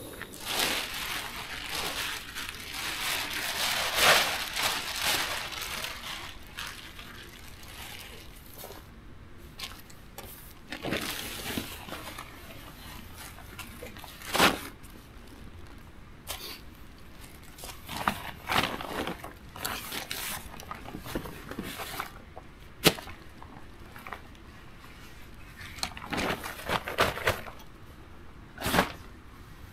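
Backpacking gear being packed up: irregular rustling of nylon tent and sleeping gear, with three sharp clicks along the way.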